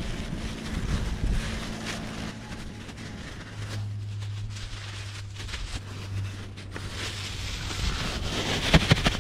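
Wind buffeting the microphone, with thin plastic bags rustling and crinkling as they are handled, the crinkling busier near the end. A low steady hum comes and goes in the middle.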